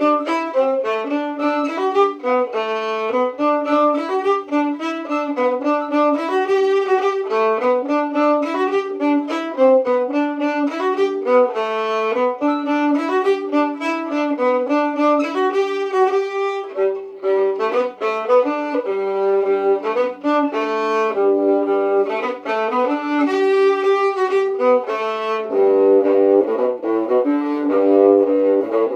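Fiddle playing a folk tune in a quick run of notes, often sounding two strings at once.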